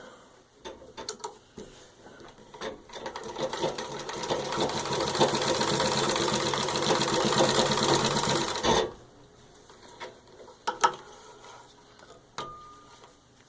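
1924 Singer 15-30 treadle sewing machine stitching through six layers of denim. After a few clicks, it gathers speed from about three seconds in and runs in a fast, even rhythm until it stops suddenly near nine seconds. A few clicks and knocks follow.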